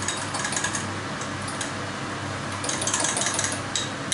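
A utensil clinking against a glass as egg and parmesan are beaten together for carbonara: scattered clicks at first, then rapid, dense clinking from about two and a half seconds in. A steady low hum runs underneath.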